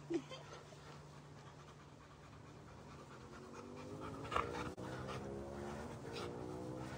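Rottweilers at play with a dog panting, and a short sharp sound about a quarter second in and again about four and a half seconds in. A faint hum slowly rising in pitch joins from about halfway.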